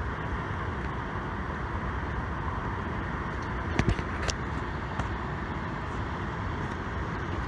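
Steady outdoor background noise, a low even rumble, with two short clicks about half a second apart near the middle.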